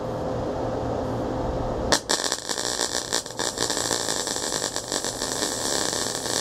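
MIG welder arc striking about two seconds in, then crackling steadily as a weld bead is run on thin-gauge auto body sheet steel.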